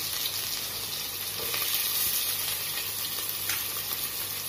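Sliced small onions sizzling steadily in hot oil in a steel pan, just added for frying.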